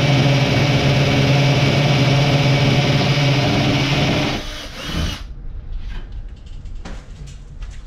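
Hammer drill boring a hole into a concrete wall for a Tapcon screw, running steadily, then stopping a little over four seconds in and winding down, followed by a few light knocks.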